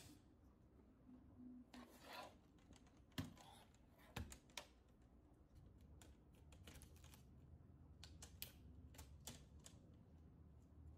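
Faint scattered clicks and short scrapes of the plastic screen bezel of an HP 15 laptop as its snap-in clips are pried loose, with a run of small clicks near the end.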